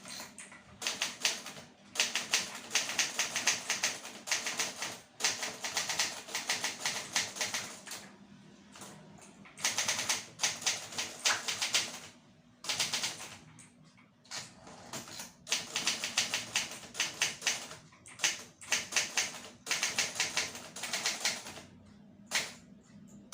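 Olivetti Studio 44 manual typewriter being typed on: rapid runs of key strikes in bursts of a few seconds, broken by short pauses.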